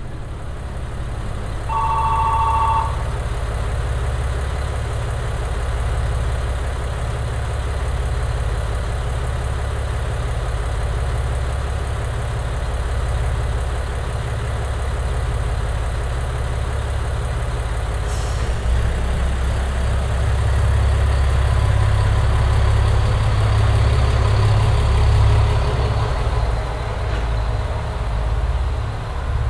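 KiHa 100/110-series diesel railcar's engine running at the platform, with a short two-tone beep about two seconds in. Its engine grows louder from about two-thirds of the way through as the train pulls away on departure.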